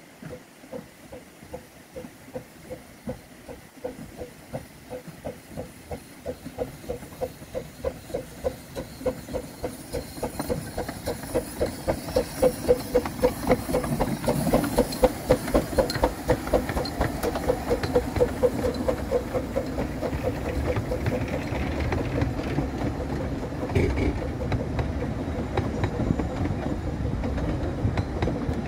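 15-inch gauge miniature steam locomotive Whillan Beck chuffing in a steady rhythm of about two to three exhaust beats a second, growing louder as it approaches and passes close by. Then its carriages roll past with a rumble and a clatter of wheels on the rail joints, with one sharper knock near the end.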